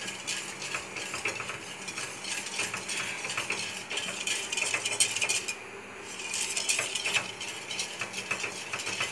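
Wire whisk stirring milk in a steel pot, its wires clicking and rattling quickly against the metal, with a brief lull about six seconds in.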